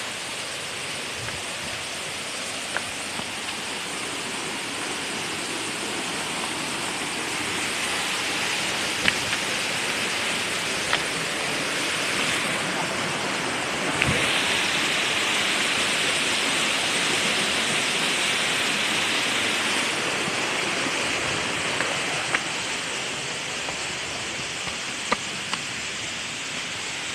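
Waterfall: a steady rush of falling water that grows louder for several seconds near the middle, with a few faint clicks.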